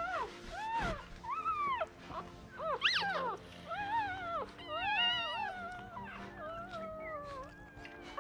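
Day-old Miniature Australian Cattle Dog puppies squealing and whining as they nurse. Many short, high cries rise and fall in pitch and overlap, with several at once about three and five seconds in.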